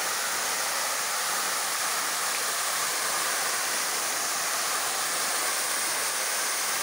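Waterfall pouring down a rock face and splashing into a shallow pool at its foot: a steady, even rush of falling water.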